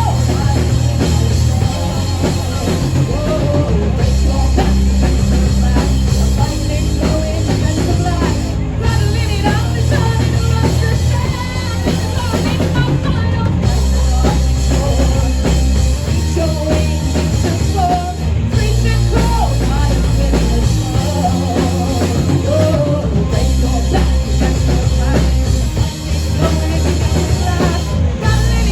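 Live rock band playing a song: drum kit, bass guitar and guitar, loud and continuous, with the bass holding notes that change every second or two.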